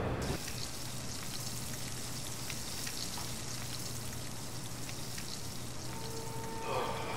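Food frying in a wok on a gas stove: a steady sizzling hiss with scattered small crackles and pops.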